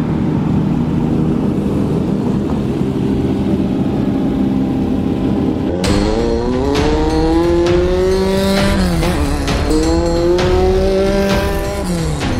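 Off-road race vehicle engine: a steady low drone, then from about six seconds in it accelerates hard, its pitch climbing, dropping at a gear change around nine seconds in, climbing again and dropping once more near the end.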